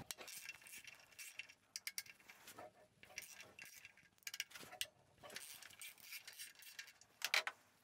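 Faint metallic clicking and clinking of a ratchet wrench and socket loosening the nuts of an engine mount plate, in a few short, irregular spells.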